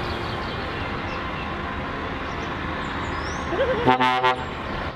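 Scania tanker truck rolling slowly past with its engine running under a steady noisy background, and a short horn blast about four seconds in.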